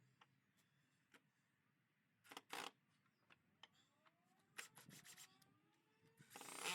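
Near silence broken by a few brief knocks and rustles: a pair about two and a half seconds in, a few around five seconds, and a louder cluster near the end.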